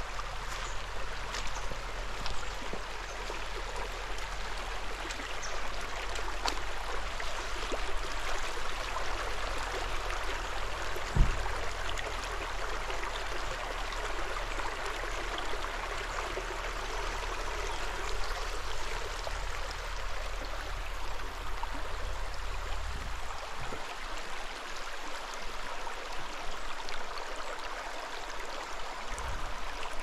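Shallow, stony mountain brook babbling steadily over rocks. A low rumble underneath stops about 23 seconds in, and a single short thump comes about eleven seconds in.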